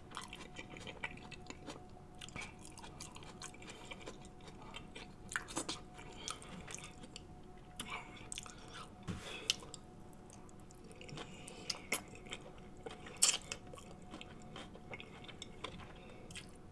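Close-miked mouth sounds of eating saucy seafood boil meat: wet chewing and lip smacking, with many short, sharp smacks and clicks at irregular intervals.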